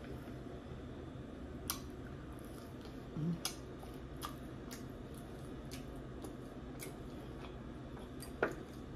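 Close-up eating of a lamb chop: wet mouth clicks and smacks while chewing the meat, scattered irregularly, the sharpest about two seconds in and again near the end.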